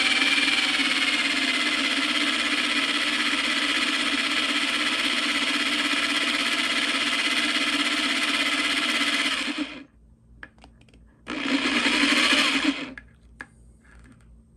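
A small cordless drill motor runs steadily, spinning a candle in its chuck to wind fine magnet wire into an actuator coil. It stops about ten seconds in, then gives one more short burst of about a second and a half to add a few more wraps.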